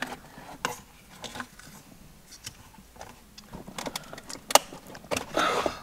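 Scattered light clicks and rattles of a car's plastic center-console trim panel being lifted and handled, with a sharper click about four and a half seconds in and a short rustle near the end.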